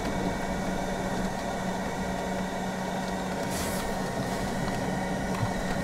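Steady cabin noise inside a car with the engine running: an even rushing hiss over a constant low hum.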